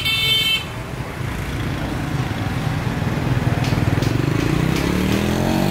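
Street traffic: a horn toot that cuts off about half a second in, then a steady low engine rumble from passing vehicles, with one engine rising in pitch near the end.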